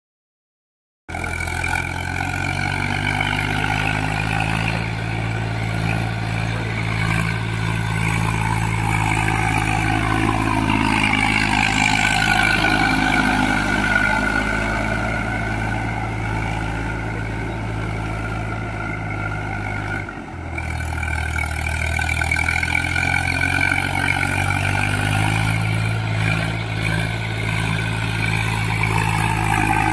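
Eicher 380 tractor's diesel engine running under load as it drives through a flooded paddy on cage wheels, puddling the mud. The sound starts about a second in. About two-thirds of the way through, the engine note drops suddenly, then rises back over a few seconds.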